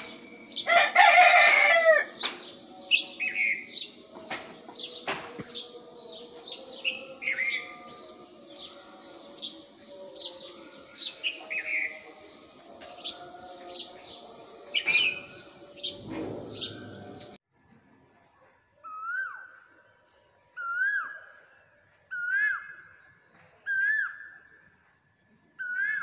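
Dawn chorus of many birds chirping and calling over each other, with one loud call about a second in. About two-thirds through it stops suddenly, leaving a single bird repeating a short rising call about every one and a half seconds.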